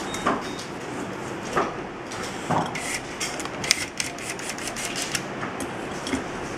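Handheld electric screwdriver working screws on the metal top of a sauna steam generator, with a few knocks early and a quick run of sharp clicks around the middle, over a steady background noise.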